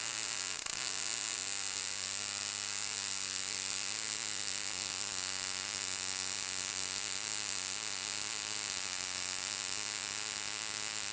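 MIG welding arc from the BOA-408i automated bore welder's outside-diameter gun, running a continuous weld around the outside of a steel ring: a steady hiss with a low buzz under it, unchanging throughout.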